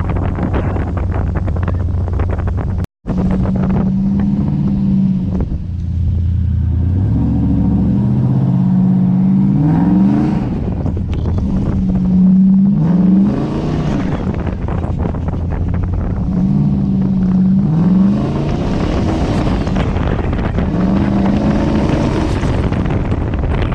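Turbocharged 6.0 V8 of a lifted GMC 2500HD pickup driving on snow, its engine note rising several times as it accelerates. The sound cuts out for an instant about three seconds in.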